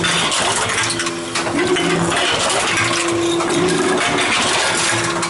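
Tomra reverse vending machine running with a steady motor hum that shifts slightly in pitch, while empty cans and bottles clatter and clink as they are fed in and accepted.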